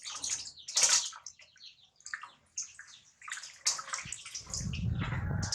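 Water splashing and sloshing in a small bath as a baby monkey is washed, in short irregular splashes; a low rumble joins about four seconds in.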